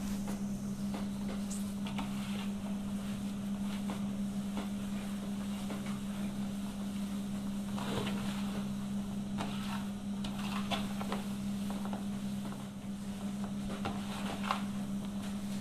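Hands kneading crumbly semolina dough in an aluminium basin: irregular scraping rubs and soft pats of dough against metal, over a steady low hum.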